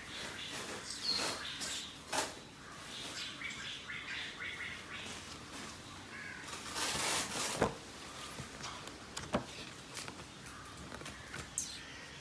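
Paper leaflets and a cardboard box being handled: irregular paper rustling and sliding, a longer rustle about seven seconds in, and a few sharp taps and clicks.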